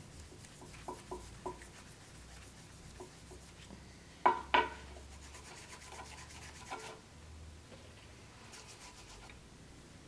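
Cloth pad rubbed back and forth by gloved hands against a wooden block, a faint scratchy rubbing with scattered light clicks. Two sharp knocks close together about four seconds in.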